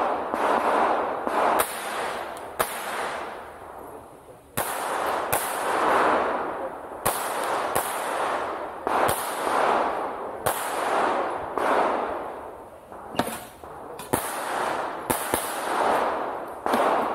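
A string of gunshots fired at targets during a shooting-match stage, coming irregularly about every one to two seconds. Each shot trails a long echo.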